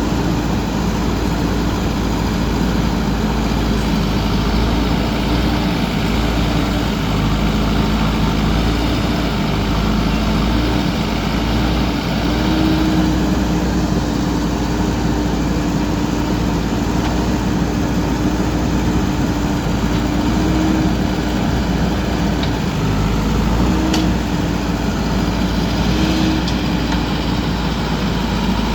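Diesel engine of a JCB backhoe loader running steadily at work, its pitch rising and dipping slightly now and then.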